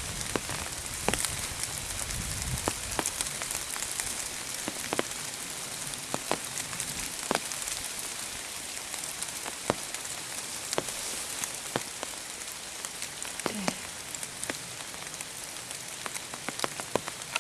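Pouring rain falling steadily, with scattered sharp ticks of single drops striking close by.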